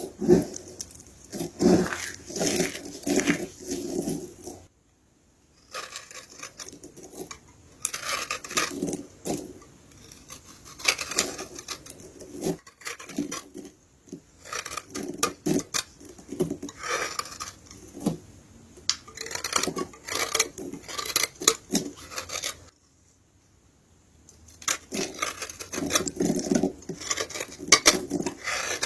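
Soap being crushed: dense runs of crisp crunching and crackling as the soap crumbles, in bursts broken by two short pauses.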